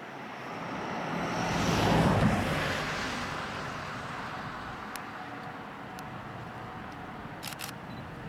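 A vehicle passes close by: its engine and rolling noise swell to a peak about two seconds in, drop in pitch as it goes past, then fade to a steady distant rumble.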